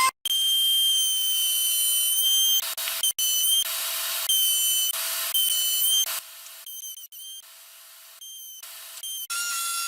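Electric wood router running at high speed: a steady high whine over a hiss, cutting out and coming back several times.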